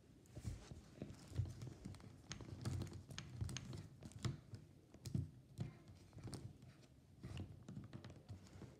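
Handling noise from plastic toys being moved by hand close to the microphone: scattered light clicks and knocks with soft rustling of a sleeve between them.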